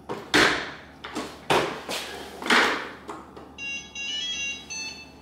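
A few loud handling knocks and rustles as a robot vacuum is moved and set down, then its short start-up jingle of electronic beeps stepping up and down in pitch near the end, as its button is pressed.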